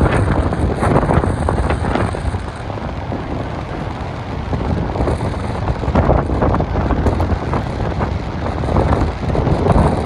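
Wind buffeting the microphone in irregular gusts over a steady rushing noise.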